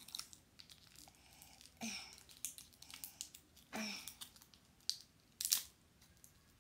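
Small clear plastic packaging crinkling and tearing under fingers as a tiny mini toy is worked free: scattered short clicks and crinkles, with a louder crinkle about five and a half seconds in.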